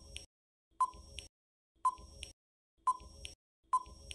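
Countdown timer sound effect: a short beep followed by a higher tick, repeating about once a second.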